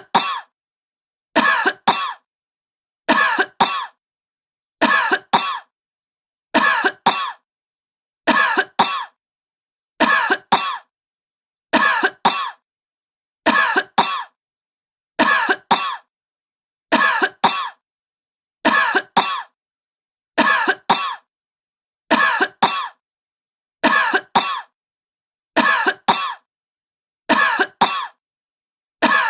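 A sick woman coughing, two quick coughs at a time, the same pair coming again and again at an even pace about every second and three-quarters, with dead silence between.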